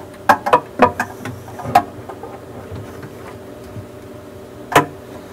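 Hard plastic clicks and knocks from a PVC drain pipe and its fittings being handled and fitted to the overflow's pipe connection: a quick run of clicks in the first two seconds, then one sharp knock near the end. A faint steady hum lies underneath.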